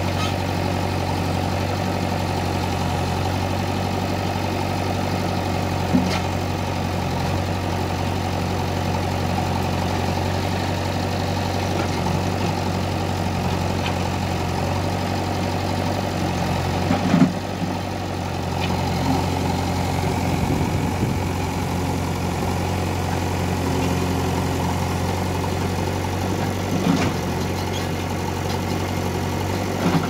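Diesel engine idling steadily with a low, even hum, broken by a few short clunks; the loudest comes about seventeen seconds in.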